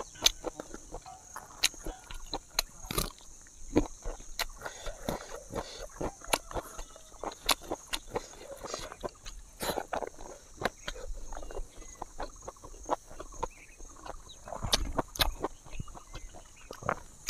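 Close-miked mukbang eating sounds: chewing and lip-smacking of a person eating pork and rice with her fingers, heard as irregular wet clicks and smacks.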